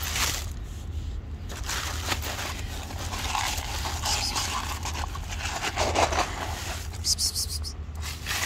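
Rustling and scraping in dry fallen leaves as someone moves about with a handheld phone, with a crisper rustle near the end, over a steady low rumble on the microphone.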